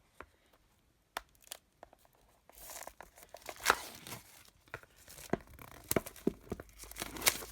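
Plastic wrap being torn and peeled off a product box, crinkling and crackling. A few faint clicks at first, then a dense crinkle of plastic from about two and a half seconds in.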